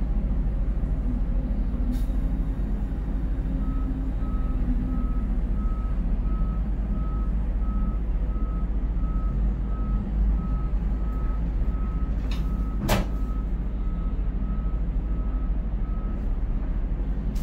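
Steady low rumble of a container crane's cab and hoist machinery as the spreader is lowered into the hold. About four seconds in, a warning beeper starts, sounding about one and a half beeps a second. There is a sharp click a couple of seconds in and a louder one near the end.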